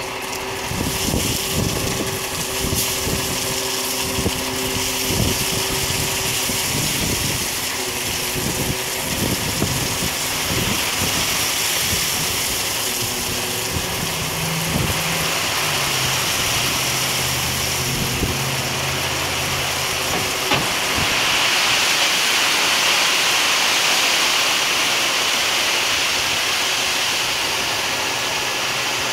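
Gravel pouring out of a raised dump truck bed onto a growing pile: a steady rushing hiss with many small knocks of stones, growing louder about two thirds in. Under it, the dump truck's engine runs, and its note shifts about halfway through.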